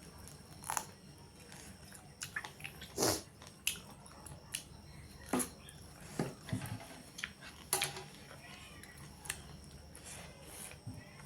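Close-up eating sounds: chewing with irregular sharp mouth smacks and clicks, one or two a second.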